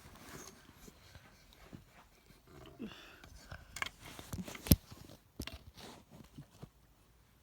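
Scattered rustling and small clicks, the loudest one sharp click nearly five seconds in.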